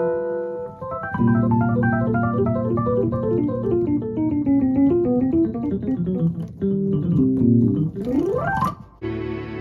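Roland Fantom keyboard played through a Fender Rumble 40 bass amplifier: a held low chord under runs of keyboard notes, with a quick rising glissando near the end. In the last half second a sustained bowed-string sound takes over.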